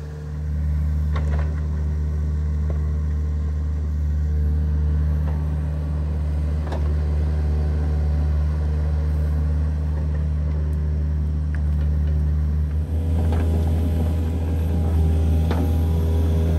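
Kobelco mini excavator's diesel engine running steadily while it backfills soil around a buried water tank, with occasional short clunks. The engine note gets busier and a little louder about thirteen seconds in as the machine works harder.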